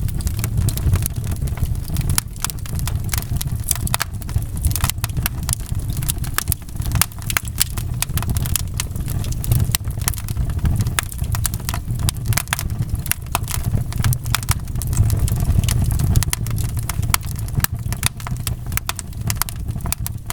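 Wood fire crackling in a fireplace: frequent irregular sharp pops and snaps over a steady low rumble of the flames.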